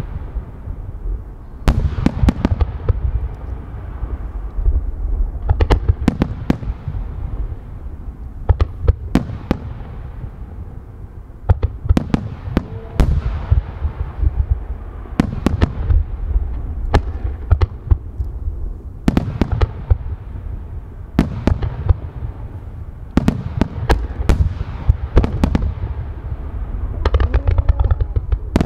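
Starmine fireworks barrage: aerial shells bursting in clusters of sharp bangs about every two seconds, each trailing off in echo, over a continuous low rumble. Near the end a quick run of reports comes as a wide fan of comets is fired.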